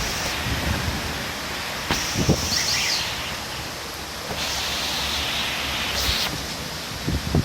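Heavy rain and storm wind: a steady rushing noise, with gusts buffeting the microphone and a couple of short thumps, about two seconds in and near the end.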